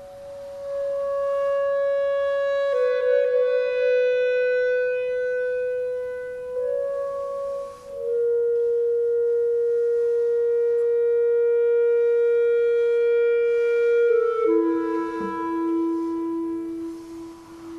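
Solo clarinet playing slow, freely improvised long notes: a held note of about six seconds in the middle, then a step down to a lower note near the end.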